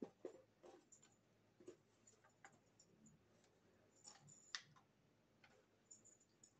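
Faint, irregular light clicks and taps of small objects being handled, with sharper clicks just after the start and about four and a half seconds in.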